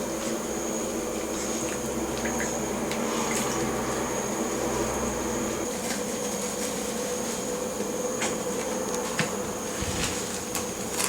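Bath water lapping and lightly splashing in a baby bathtub as a newborn is washed, with small scattered splashes over a steady background hum and a thin high whine.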